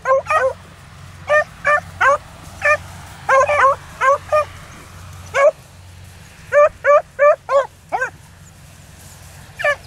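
Beagle hound giving tongue on a rabbit's scent: short, high yelping barks, often in quick runs of two or three, irregularly spaced, with a pause near the end.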